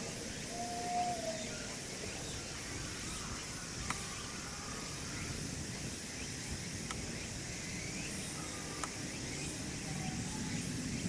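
Outdoor ambience: a steady high hiss over a low background rumble, with three faint sharp clicks and a few brief faint chirps.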